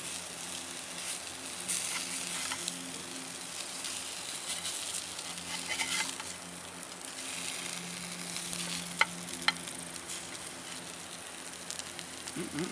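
Whole trout frying in oil in a small pan on a portable camp stove, sizzling steadily as they are turned over, with a few sharp clicks of a metal spatula against the pan.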